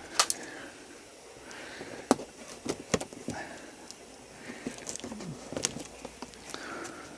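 Unboxing handling noise: scattered sharp knocks and clicks with light rustling as a cardboard box and its packaging are opened and handled.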